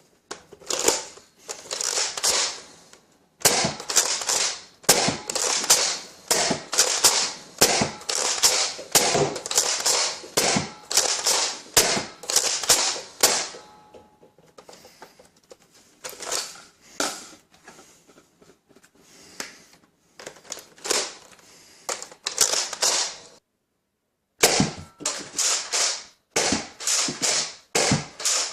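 Nerf Rival Helios XVIII-700 spring-powered bolt-action blaster being primed and fired again and again, its foam balls smacking into a ball-catch target. The result is a long run of sharp clacks and pops, with a brief break about two-thirds of the way through.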